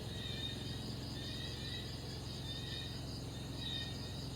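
Outdoor ambience: a steady low hum under short high-pitched chirps that repeat every second or so.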